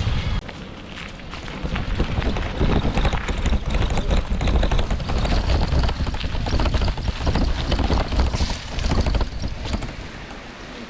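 Wind buffeting the microphone while riding a bicycle on a forest road, a loud steady rumble with irregular clatter and rattling throughout.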